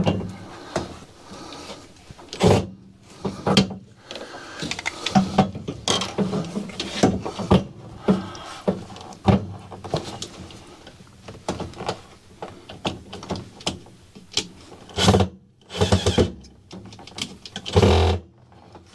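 Irregular knocks, clicks and clatter of hand tools and metal parts during hands-on repair work on a microwave oven.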